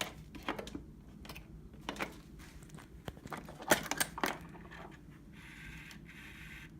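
Scattered light clicks and knocks as the motorcycle is readied to start, then a steady hiss lasting about a second and a half, starting about five seconds in.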